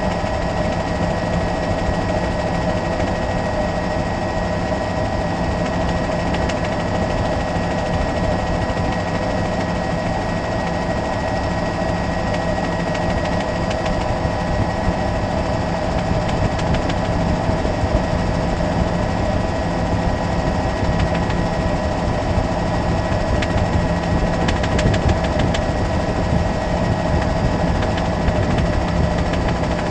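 Helicopter engine and rotor noise: a steady drone with a constant whine over a broad rumble.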